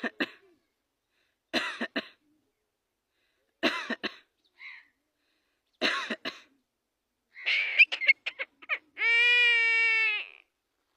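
Javan myna mimicking a human cough: short harsh cough-like bursts about every two seconds. Near the end comes one long, steady, pitched call lasting about a second.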